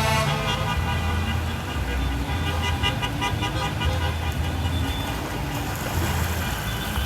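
Street traffic with car horns honking; a held horn tone fades just after the start, and fainter horn tones carry on under the passing cars.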